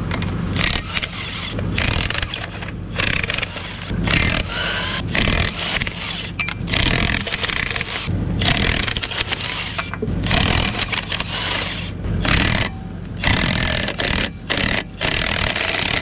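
DeWalt 20V cordless impact wrench hammering lug nuts loose on a dually truck's rear wheel. It comes in a dozen or so short bursts with brief pauses between, over a steady low hum.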